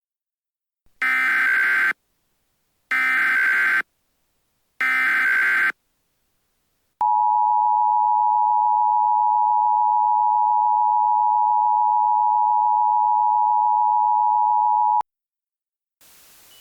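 Emergency Alert System activation: three one-second bursts of SAME digital header data, each a harsh electronic screech, about a second apart. Then the EAS two-tone attention signal (853 and 960 Hz together) sounds steadily for about eight seconds and cuts off sharply.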